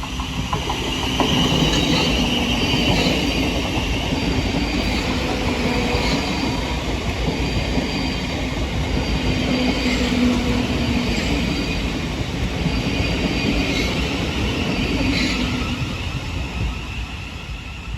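Thameslink Class 700 electric multiple unit running into the platform, with steady rumble and high-pitched squealing from its wheels and brakes. It fades near the end.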